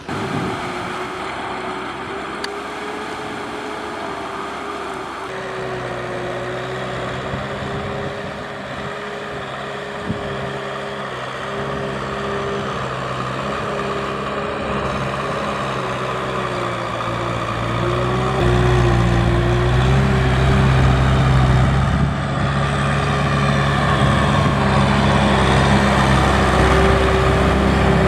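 Kubota M6040 tractor's four-cylinder diesel engine running steadily while it pulls a loaded trailer, growing louder about two-thirds of the way in. A wavering higher whine runs over it.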